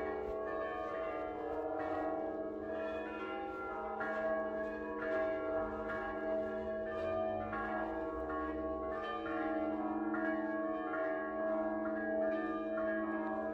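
Church bells ringing: a continuous wash of many overlapping, sustained bell tones.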